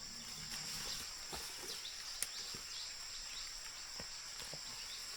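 Steady high-pitched drone of insects, crickets or cicadas, with faint repeated downward chirps over it and a few light scattered knocks.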